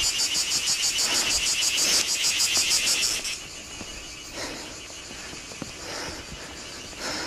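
An animal's fast, evenly pulsed, high-pitched chirring call that cuts off abruptly about three seconds in, leaving quieter background sound.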